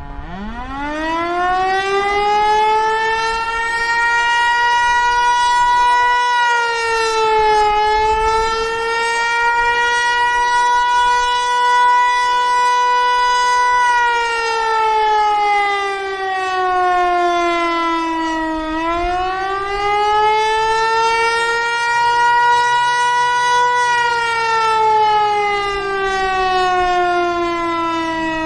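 Federal Signal Eclipse 8 electronic outdoor warning siren sounding. It climbs quickly to full pitch and holds a steady tone, then about halfway through begins a slow wail, falling and rising over several seconds each way: the rising-and-falling Attack signal.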